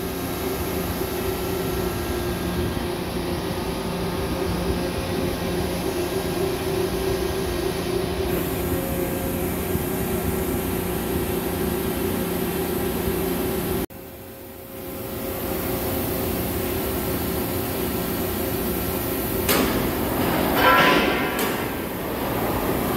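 Steady mechanical hum of heavy machine-shop equipment, with several held low tones. In the last few seconds a louder mechanical whirring with a higher ringing tone rises and falls.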